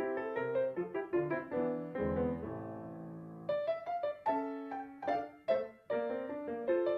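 Solo piano music: quick struck notes and chords, with one chord held for about a second and a half in the middle.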